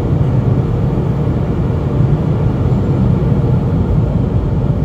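Steady, loud low roar of rushing air from an automatic car wash's drying blowers, heard from inside the car.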